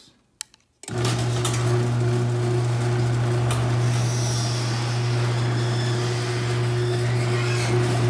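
A click, then a Chamberlain garage door opener's motor starts about a second in and runs steadily with a low hum as it raises the door, answering the newly programmed universal remote.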